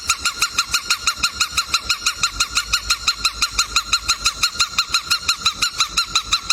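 Cockatiel calling in a fast, even run of short identical chirps, about seven a second, that stops abruptly.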